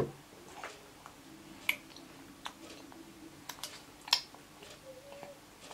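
A plastic spoon clicking and scraping against a ceramic bowl while scooping mashed grapes, in about six sharp, separate taps. A short baby's vocal sound comes near the end.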